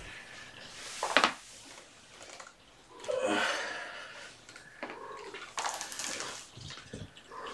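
Handling and movement noises: a sharp knock about a second in, then rustling and shuffling of clothing as a person sits down on a carpeted floor.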